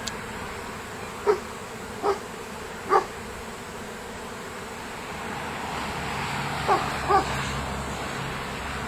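A swarm of honey bees buzzing steadily as it settles into a swarm trap. Over it come five short barks: three about a second apart early on, and two close together about seven seconds in.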